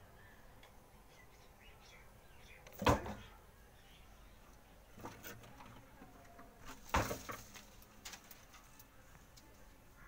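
Short scraping knocks on brick and rubble: two louder ones about three and seven seconds in, with smaller ones around five and eight seconds.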